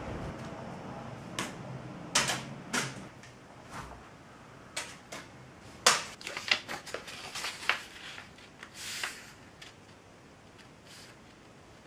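A sheet of printer paper being handled: irregular crisp crackles and taps as it is flexed and laid on a table, with a short sliding rustle about nine seconds in. A low rumble fades out over the first few seconds.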